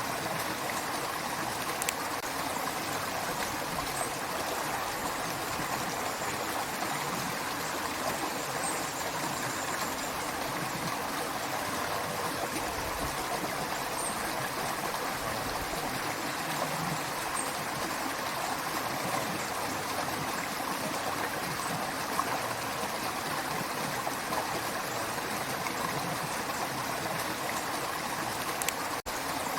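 Creek water running steadily over rocks, a continuous rushing and gurgling, with a momentary break near the end.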